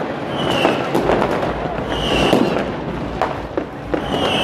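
Consumer fireworks and firecrackers going off in quick succession: many sharp bangs and crackles over a constant hiss, with a short high whistle about every two seconds.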